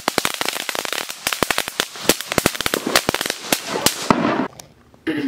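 Ground fountain firework spraying sparks with rapid, dense crackling, ending in a short hiss as it burns out about four seconds in.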